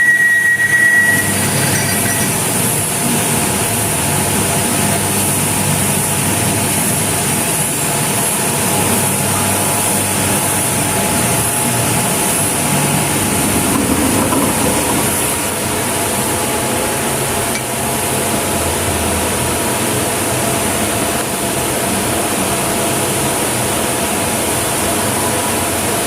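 CNC lathe taking a deep cut into a turning part, running as a steady machine noise with a constant high whine and hum. A short high-pitched squeal sounds right at the start.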